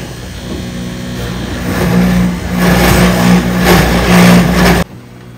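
Wooden-clog carving machine running with a steady motor hum, its cutter biting into the wood with a loud, harsh grinding from about two seconds in. The cutting stops suddenly near the end, leaving a lower hum.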